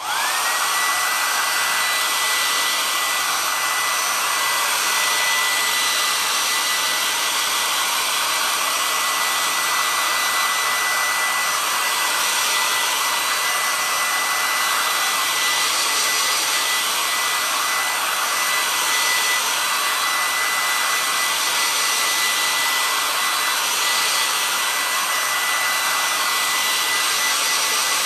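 Hair dryer switched on and running steadily: a rushing blow of air with a high motor whine that rises as it spins up at the start, then holds level. It is drying freshly applied chalk paste.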